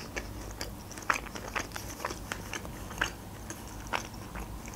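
Close-miked chewing of a crispy breaded chicken nugget: irregular crunches and small wet mouth clicks.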